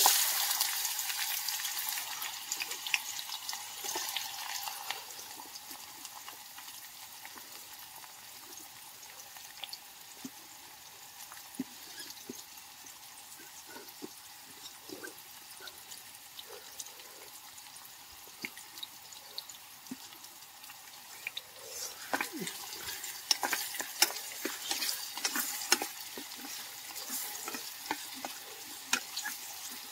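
Chopped onions sizzling in hot oil in a small camping pot on a butane canister stove. There is a loud hiss as they drop in, which dies down to a soft crackle. About two-thirds of the way through it grows louder again, with clicks and scrapes as a wooden spoon stirs the pot.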